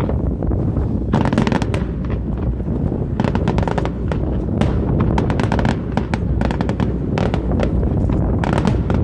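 Aerial fireworks bursting: clusters of sharp crackling reports come in quick succession every second or two, over a steady low rumble.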